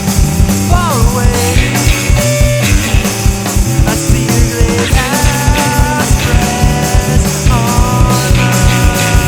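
Math-rock band playing live: busy drums and bass under electric guitar, with high notes that bend in pitch about a second in, about five seconds in and near the eight-second mark.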